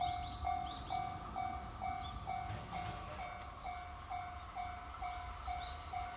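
Japanese railway level-crossing warning bell ringing steadily, a little over two dings a second, signalling that a train is approaching.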